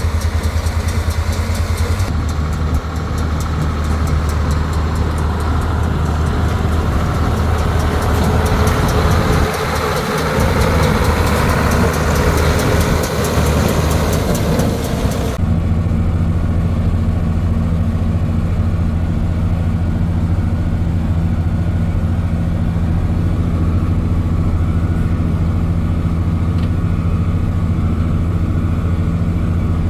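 John Deere tractor's diesel engine running steadily while pulling a New Holland small square baler that is working, picking up and baling alfalfa, with a busy mechanical rattle over the engine for the first half. The sound changes abruptly twice, with the engine hum dominating in the second half.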